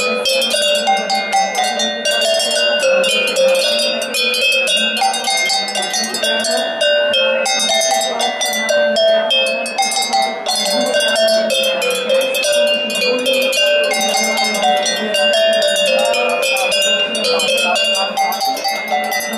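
A row of metal cowbells of different pitches, hung from a wooden pole, struck rapidly one after another to play a ringing melody.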